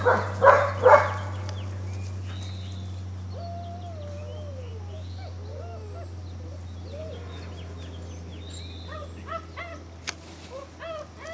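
German Shepherd puppies barking, a few sharp barks in the first second, then fainter whines and short yips, with the yips picking up again near the end.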